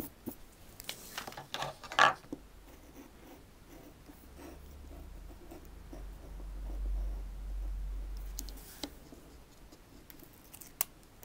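Utility knife blade scraping and scratching across screentone on paper in short strokes, the sharpest scrape about two seconds in and a few lighter ticks later. A low rumble runs through the middle.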